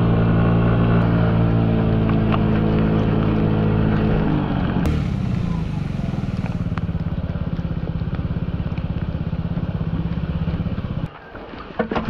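Honda Ruckus 49cc four-stroke single-cylinder scooter engine running at speed with wet-road noise, then after about four seconds running slower and steadier at low revs. The engine cuts off abruptly about eleven seconds in, followed by a few sharp clicks and knocks.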